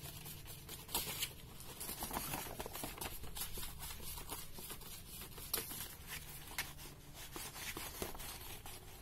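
Faint, scattered rustling and light taps of cloth and paper sheets disturbed as kittens scamper and tussle over them on a tiled floor.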